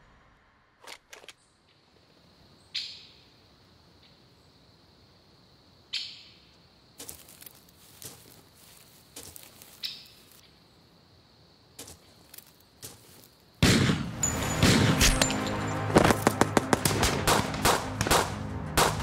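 Gunfire: a few scattered single shots with short echoes, then about 13 seconds in a sudden, loud barrage of rapid rifle and machine-gun fire.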